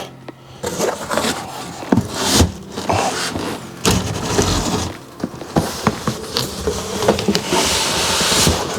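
Cardboard box and styrofoam packing scraping and rubbing with short knocks and bumps as a large PC case is worked out of its upturned box.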